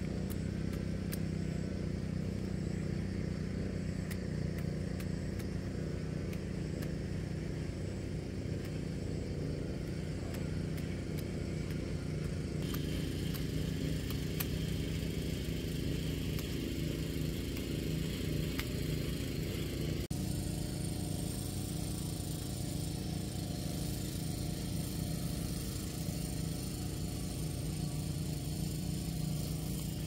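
A small engine running steadily, its sound shifting abruptly twice, about 12 and 20 seconds in.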